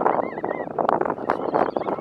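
A mixed flock of shorebirds, crab plovers and oystercatchers among them, calling all together: a dense chatter of many overlapping short calls and sharp clicks.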